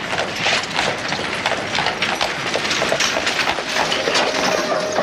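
Dense, continuous clatter and shuffling of many people moving together, with a steady run of knocks: footsteps and the jostling of armoured soldiers.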